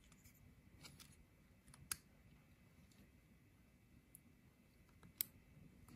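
Near silence broken by a few faint plastic clicks and ticks as a crimped terminal pin with a rubber seal is handled and pushed into a multi-pin wiring connector. The sharpest click is about two seconds in, and another comes near the end.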